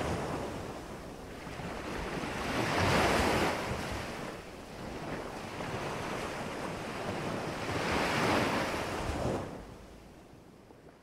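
Ocean surf: waves washing in as swells of rushing noise, three of them a few seconds apart, dying away near the end.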